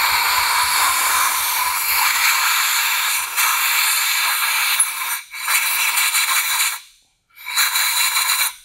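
Compressed-air blow gun hissing as it blasts drill chips out of a freshly drilled head-stud hole in an LS engine block. One long blast of about five seconds, then two short blasts.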